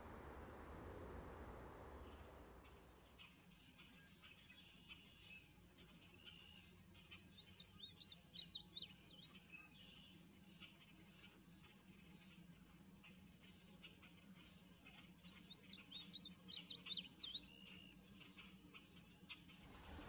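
A painted bunting sings two short, rapid warbled phrases of about two seconds each, some eight seconds apart, over a steady high-pitched insect drone that starts about two seconds in.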